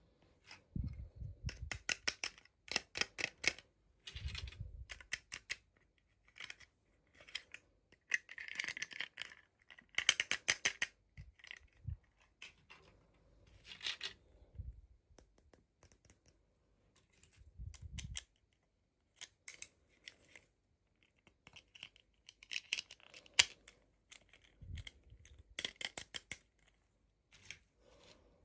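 Toy packaging being handled and opened by hand: irregular bursts of crinkling, clicking and snipping with short pauses between, and a few soft low thuds.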